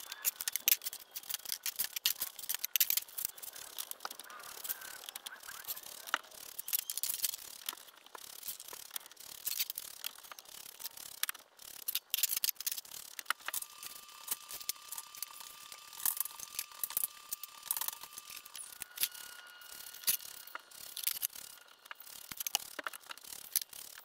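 Sawn pine boards knocking and clattering as they are lifted off a stack and handled: a steady run of short wooden clicks and knocks.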